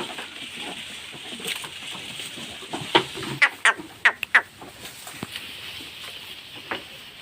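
A cluster of about half a dozen short, sharp animal or bird calls in the middle, over a steady high hiss.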